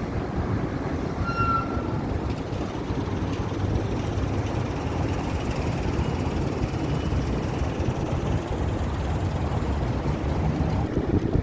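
Steady low rumble of road traffic passing, mixed with wind buffeting the microphone; a short high chirp about a second and a half in.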